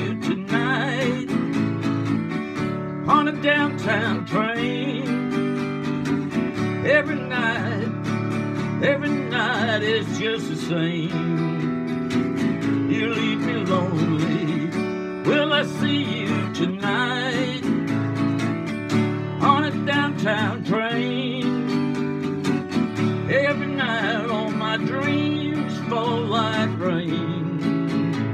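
Acoustic guitar strummed through chord changes in a steady rhythm, an instrumental passage of a country-style song, with higher sliding notes heard over the chords now and then.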